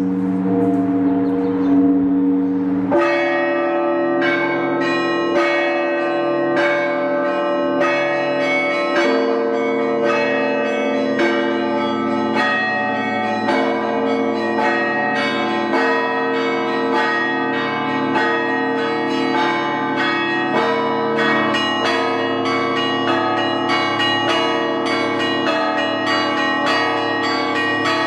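Russian Orthodox church bells of the Ivan the Great Bell Tower rung in a zvon peal. Deep bell tones ring on, then about three seconds in a quick, steady pattern of strikes starts, about two a second, over the ringing of the larger bells.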